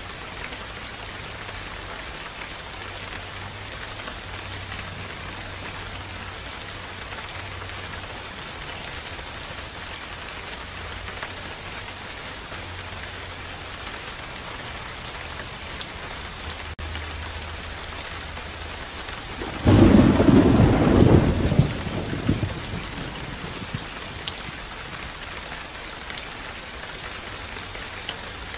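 Steady rain hissing, with one loud clap of thunder about twenty seconds in that rumbles away over two or three seconds.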